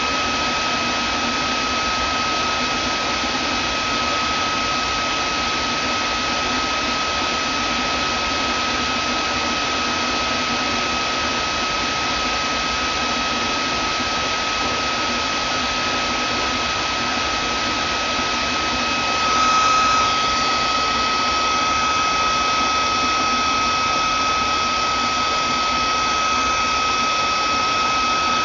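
Vacuum cleaner motor running steadily: a rush of air with a steady whine over it. About two-thirds of the way through it surges briefly, then carries on a little louder and brighter.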